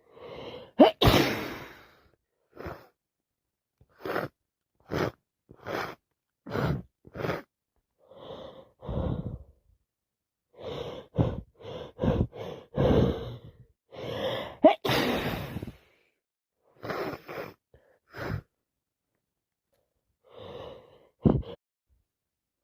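A person with a head cold sneezing twice, loudly, about a second in and about two-thirds of the way through, each sneeze led by gasping in-breaths. Between and after them come many short, sharp breaths.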